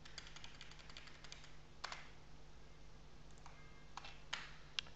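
Typing on a computer keyboard: faint, irregular keystroke clicks over a steady low hum.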